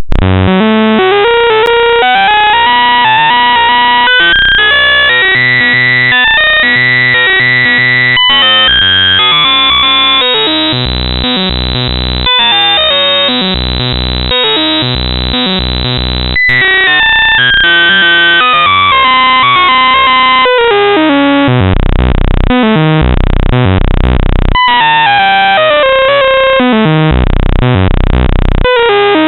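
Loud, harsh computer-generated noise music from a joke malware payload, in the style of bytebeat. It starts abruptly, and a stepping tone climbs over about the first ten seconds, then falls back down, broken by constant short stutters.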